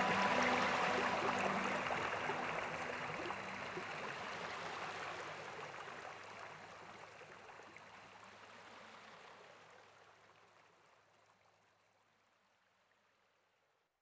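Rushing water of a waterfall, a steady noise that fades out gradually to silence about twelve seconds in.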